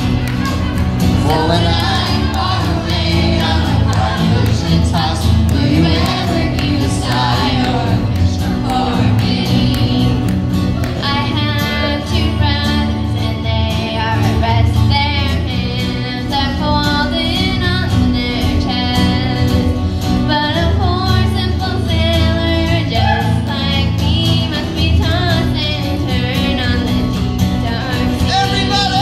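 Live song: two young girls singing together over two acoustic guitars.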